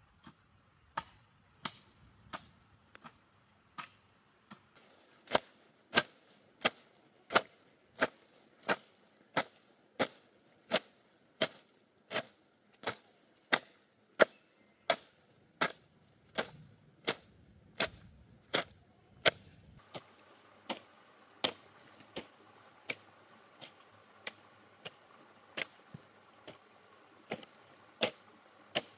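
Steady, rhythmic chopping: a blade striking wood with sharp, evenly spaced knocks, about three every two seconds.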